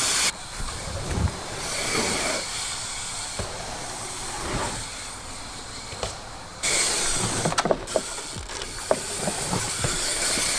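Haro Thread Slope hardtail being ridden over dirt jumps: a steady rushing noise of tyres rolling on dirt, with scattered clicks and knocks. The rushing gets louder about two-thirds of the way through.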